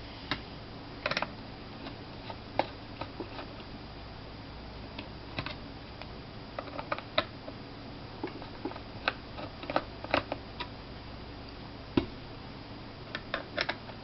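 Small Phillips screwdriver working the screws out of a laptop hard drive's metal case: scattered light clicks and ticks of the tool against screws and metal, some in small clusters, over a low steady hiss.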